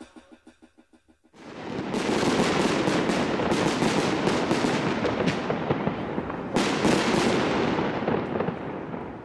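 The tail of a song fading out, then fireworks going off: a dense run of bangs and crackling that starts about a second in. A second burst of bangs comes later, and the crackle dies away near the end.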